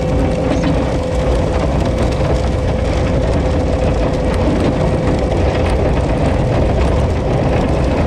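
Cat skid steer's diesel engine running up close, a steady drone with a constant high hum over it and continual rattling and clatter from the machine.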